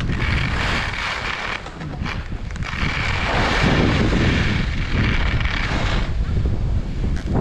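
Skis running over groomed snow, their edges hissing in stretches that swell and fade with the turns, over a steady low rumble of wind buffeting the GoPro's microphone.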